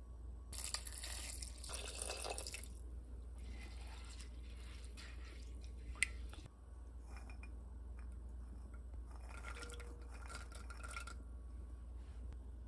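Liquid poured into an enameled cast-iron rice pot of raw rice and diced vegetables, then stirred in with a spoon, with one sharp click about six seconds in.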